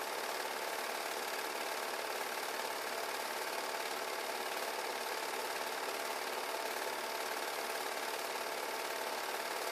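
8 mm film projector running: the steady, unchanging mechanical sound of its motor and film-advance mechanism, with no other sound on the track.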